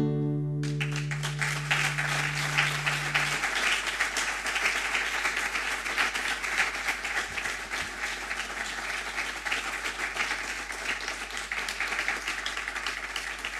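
Audience applause breaking out about half a second in and carrying on steadily, while the last chord of a classical guitar rings out underneath for the first few seconds.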